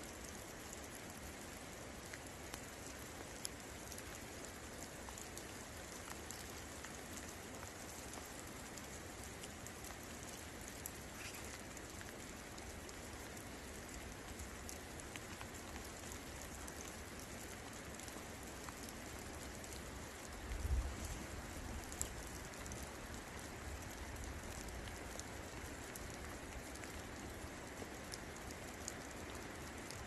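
Steady rain falling, with many fine individual drop ticks. About two-thirds of the way through, a brief deep rumble rises over the rain and fades.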